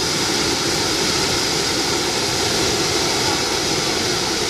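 Hot-air balloon's propane burner firing continuously, a steady loud roar, blasting flame into the envelope to heat the air during hot inflation.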